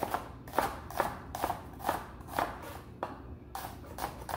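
Chef's knife slicing a red onion into half moons on a wooden cutting board: a steady series of sharp knocks as the blade hits the board, about two cuts a second.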